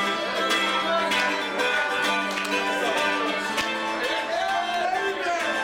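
Mandolin strummed in a bluegrass-like style, with men's voices over it.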